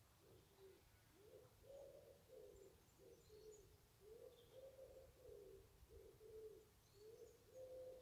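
A wood pigeon cooing: faint, low notes repeated in short phrases, one phrase after another. A few faint high chirps of small birds come in the background.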